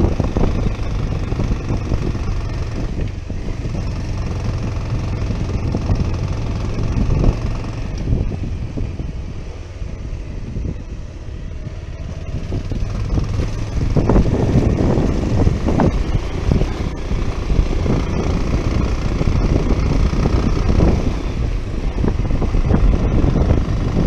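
Bajaj Pulsar 150 single-cylinder motorcycle running as it rides along, mixed with wind rushing over the microphone. The rumble eases off for a few seconds and grows louder again about halfway through.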